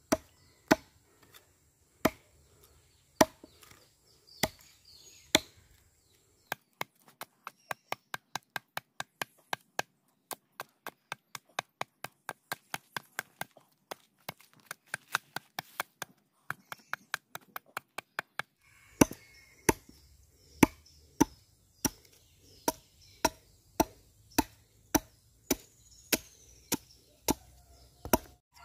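Short-handled curved adze chopping into the hollow of a log, carving out a wooden mortar: a series of sharp chops into wood. They come about one a second at first, quicken to about three a second from about six seconds in, and slow to about two a second from near twenty seconds.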